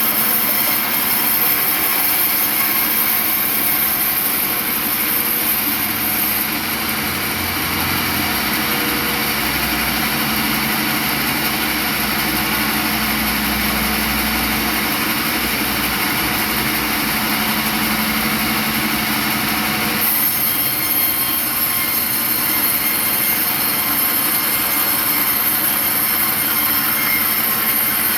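Sawmill machinery running steadily: a constant mechanical hum with a high hiss over it. The hiss drops back about six seconds in and returns about twenty seconds in, with a deeper rumble added for a while in the middle.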